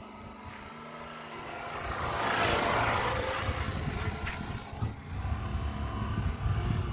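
Honda Shine single-cylinder motorcycle riding past, its engine and road noise growing louder as it comes by about two to three seconds in, then fading as it moves away; a sudden change about five seconds in.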